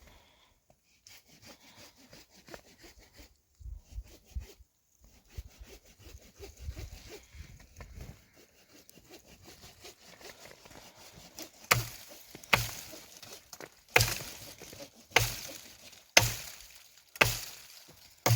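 Faint rustling and handling, then, from about twelve seconds in, an axe chopping wood with sharp strokes roughly once a second, seven in all.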